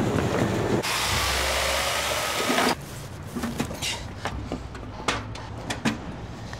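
Power-tool work: a loud steady whirring hiss for about two seconds, cut off sharply, then a quieter stretch of irregular knocks and clicks.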